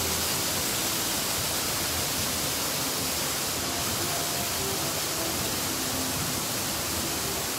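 Waterfall: water pouring down and splashing, a loud, steady rushing noise.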